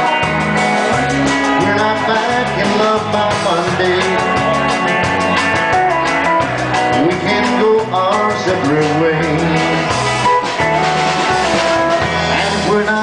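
Live band playing an instrumental passage: electric guitar and pedal steel guitar lines with sliding notes over bass and a steady beat.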